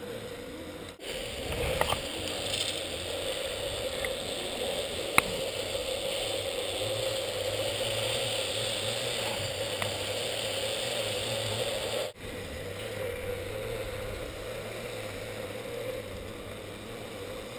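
Zipline trolley pulleys running along a steel cable: a steady mechanical whirr that swells through the middle of the ride and eases off later.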